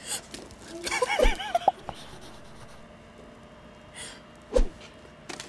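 A woman's nervous breathing and a short gasp-like vocal sound about a second in, with a soft knock; then quiet, and another brief knock near the end.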